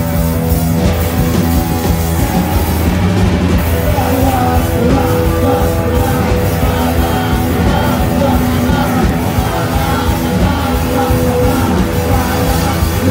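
Post-punk rock band playing live and loud: guitars ringing out over bass and drums, the full band heard from the audience.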